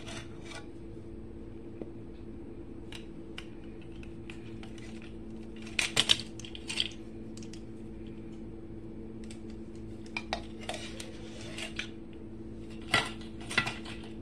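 A measuring spoon clinking and tapping against a baking powder can and a mixing bowl as powder is spooned in: scattered clinks in small clusters. A steady low hum runs underneath.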